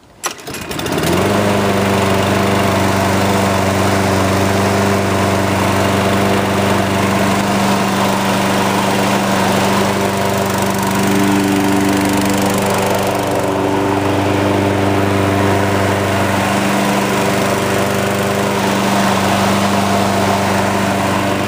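Sears Craftsman lawn mower's single-cylinder Briggs & Stratton engine starting within about a second and running smoothly at a steady speed. The sound is of a healthy engine after a full tune-up, carburettor rebuild and automatic choke repair.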